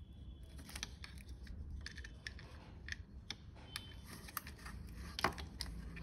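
Scattered light clicks and rustles of plastic and wire as an 18650 lithium-ion cell and its leads are pressed by hand into a mini fan's plastic battery compartment, with one sharper click about five seconds in.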